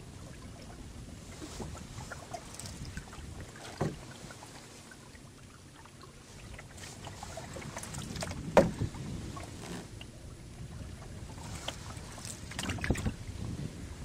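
Canoe being paddled on choppy water: a steady wash of water against the hull, broken by three short, sharp knocks or splashes about four seconds apart, the middle one loudest.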